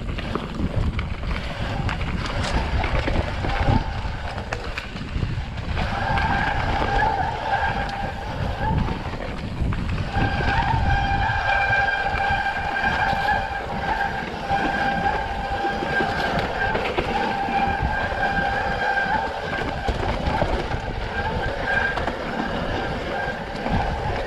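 Mountain bike rolling down a steep dirt trail: a steady rush of tyre and rattle noise. From about six seconds in a steady high-pitched squeal from the bike joins it, breaking off briefly near ten seconds and then running on.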